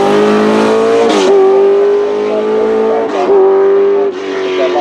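Racing car engine accelerating hard through the gears, its pitch climbing and then dropping sharply at upshifts about a second in and again around three seconds, before it eases off near the end.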